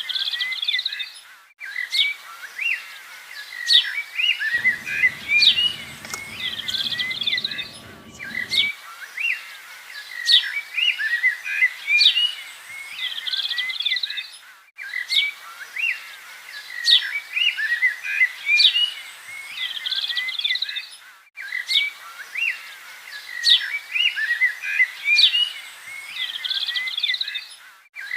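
Birdsong ambience of many small birds chirping and whistling. It plays as a loop that briefly drops out and restarts about every six and a half seconds.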